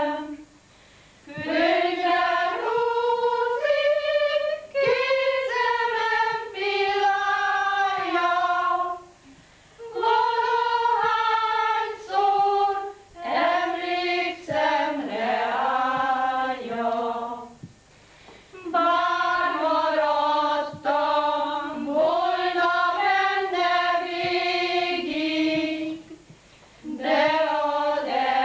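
A group of women singing together unaccompanied. They sing in long phrases of held notes, with a short breath-pause about every eight seconds.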